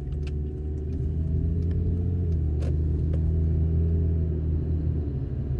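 Steady low mechanical hum with a few faint clicks; its pitch shifts slightly a little past two seconds in.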